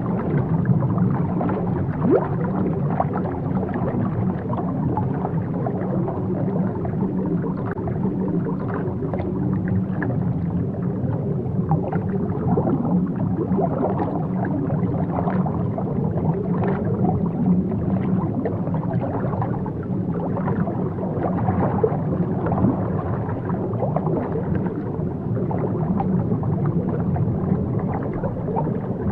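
Underwater ambience: a steady, muffled low rush of water, dotted throughout with small bubbling and gurgling sounds.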